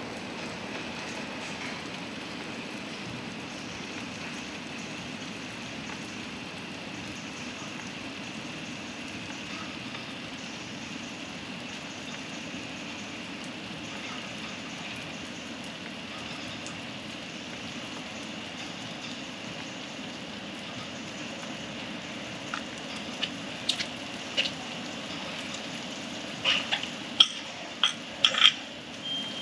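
Petrol pump nozzle running fuel into a car's tank: a steady rushing hiss with a faint high whine. Near the end come several sharp clicks and knocks.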